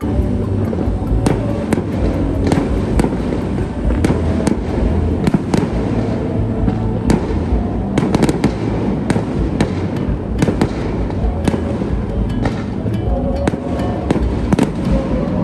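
Fireworks going off: a dense run of sharp cracks and pops over a continuous low rumble, starting abruptly.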